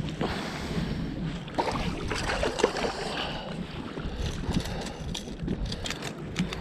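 Wind on the microphone and choppy water against an aluminium fishing boat, with a series of sharp clicks and knocks in the second half.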